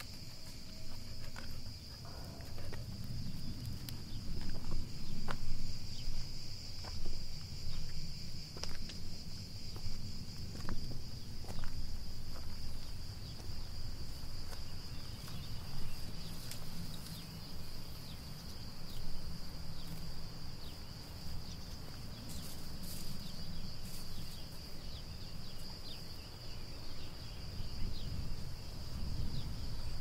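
Summer forest insect chorus: a steady high-pitched trill that holds unbroken throughout, over a low rumble, with scattered faint clicks.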